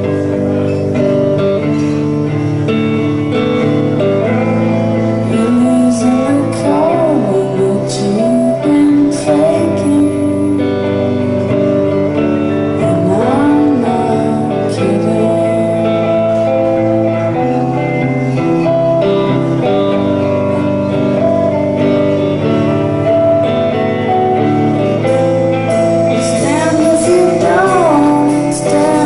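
A woman singing a slow song live while playing electric guitar, her voice gliding over steady held guitar chords.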